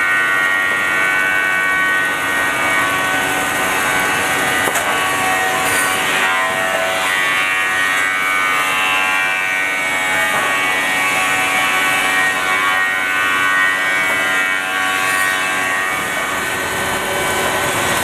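Woodworking machinery of an automated lumber sawing line running: a loud, steady whine made of many held tones, with no separate knocks.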